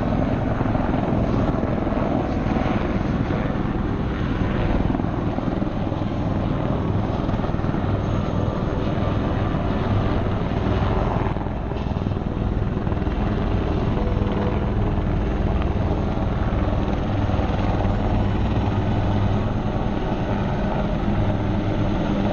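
Marine AH-1Z Viper and UH-1Y Venom helicopters flying, their rotors and turbine engines running steadily and loud.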